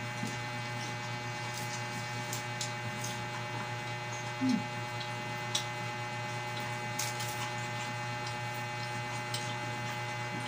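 Steady low electrical mains hum, with a few faint clicks and a short vocal sound about four and a half seconds in.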